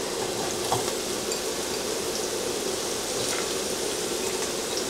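Food frying in olive oil in a pan, with a steady sizzle and a few light ticks.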